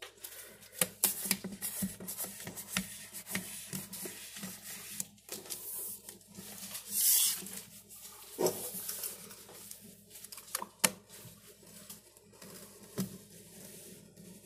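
Vinyl contact paper crackling and rustling as it is handled and worked onto a countertop, with scattered sharp clicks and a short hiss about seven seconds in.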